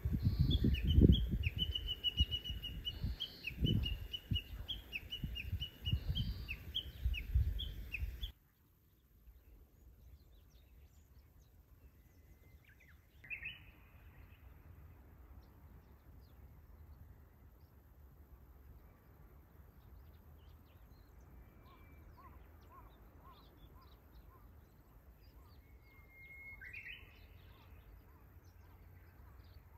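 Japanese bush warbler singing. First comes a rapid run of repeated high notes over heavy low rumbling from strong wind on the microphone. Then, after an abrupt drop to a much quieter background about eight seconds in, come two full 'hoo-hokekyo' songs about thirteen seconds apart, each a held whistle ending in a quick flourish.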